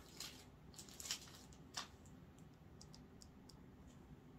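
Faint crinkling of a syringe's sterile plastic peel pack being opened, with a few light scattered clicks.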